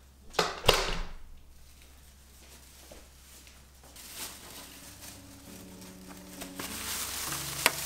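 Two sharp knocks about half a second in, then a plastic carrier bag with a food container inside rustling and crinkling as it is handled, ending with a sharp tap near the end. Soft music fades in from about the middle.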